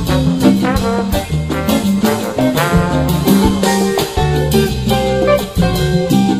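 Upbeat background music with horns over a bouncing bass line and a steady beat.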